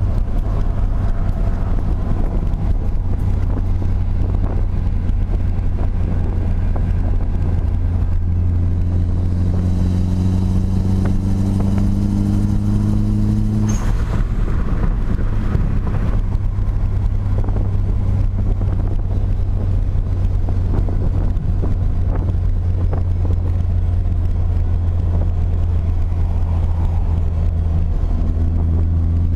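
Nissan SR20DET turbocharged four-cylinder with an S15 Spec-R T28 turbo, running with a steady low drone. From about eight seconds in it rises in pitch under boost, then cuts off sharply about halfway through with a short burst as the throttle closes, typical of the HKS SSQV blow-off valve venting. It then runs steadily again and starts another rise near the end. This is the boost noise that the owner fears means the turbo is going out.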